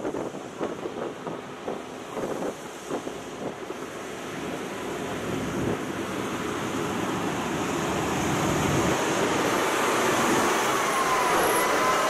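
Volvo R100 rigid dump truck driving toward and past on a gravel road: engine and tyre noise that grows steadily louder as it approaches, with a faint whine wavering in pitch near the end.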